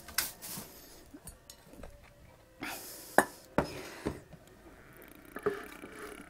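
Plate and pan clinking and knocking on a hard surface as they are handled, a handful of sharp clinks with the loudest about three seconds in.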